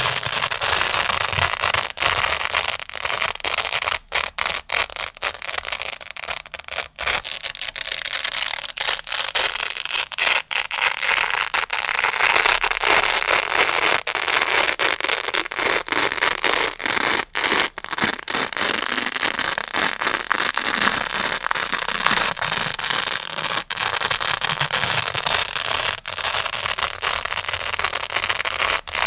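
Grey velcro (hook-and-loop) pad worked close to the microphone, giving a dense, continuous crunching with short breaks now and then.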